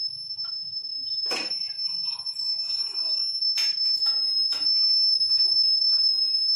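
Closed stainless-steel idli cooker steaming on the stove, giving a steady high-pitched whistle, with a few sharp clicks about one and a half, three and a half and four and a half seconds in.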